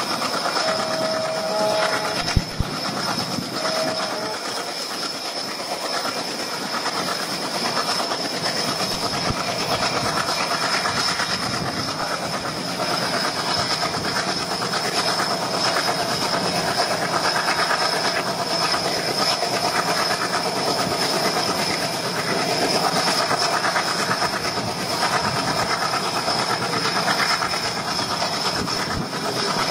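Train running along the line, its wheels clattering over the rail joints under a steady rush of running noise. Two brief pitched tones sound in the first few seconds.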